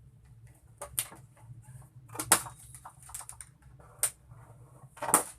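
Cardboard laptop box being handled and opened: irregular sharp clicks and knocks, a few louder ones among lighter ticks and rustling.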